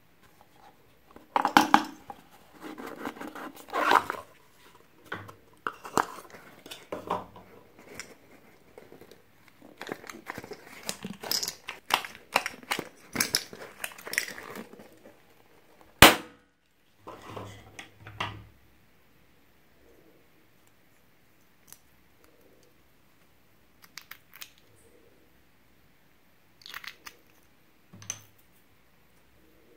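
Close handling of small craft items: a cardboard gift box being opened and handled with crinkling, rustling and tearing noises, a single sharp snip about 16 seconds in, then a few scattered light taps and clicks.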